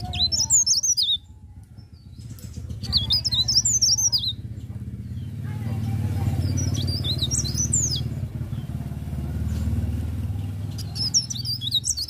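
Caged cikrak daun (blerengan) leaf warbler singing in short bursts of quick, high twittering phrases, four bursts of one to two seconds with pauses between. A steady low rumble runs underneath, swelling through the middle.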